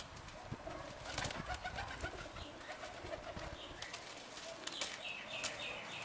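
Birds squabbling at a seed feeder: a run of quick, low repeated calls in the first half, a few higher chirps near the end, and small scattered taps.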